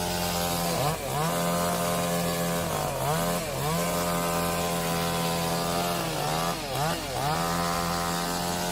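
Chainsaw running at high revs. Its pitch dips briefly and climbs back about a second in, again around three seconds, and twice more near six and a half to seven seconds.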